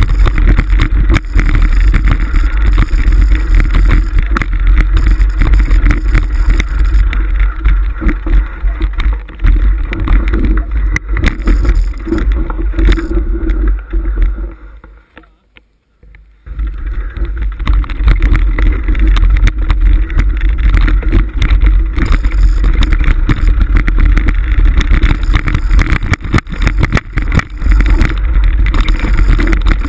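Mountain bike riding over a rocky dirt trail, heard through a handlebar-mounted action camera: loud wind rumble on the microphone with constant small rattles and knocks from the stones. The sound drops away for about a second and a half near the middle, then resumes.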